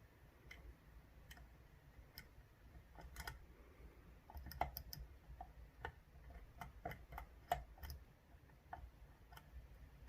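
Faint, irregular small metallic clicks of a dimple pick and tension tool working the pins of a 10-pin Ezcurra dimple euro cylinder, roughly one every half second, with two sharper clicks about halfway through and again after about seven and a half seconds.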